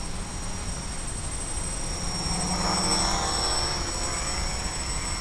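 Quadrixette 30 quadcopter's electric motors and propellers buzzing in flight, swelling louder about two to three seconds in as the copter passes close by, then fading with a slight drop in pitch.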